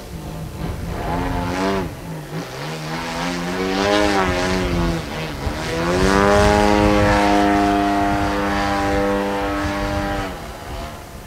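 Radio-controlled Sbach aerobatic plane's DLE-111 twin-cylinder two-stroke gasoline engine, with a KS muffler, flying overhead. Its note dips and rises with throttle changes, then climbs about six seconds in and holds steady at its loudest until about ten seconds in, when it throttles back.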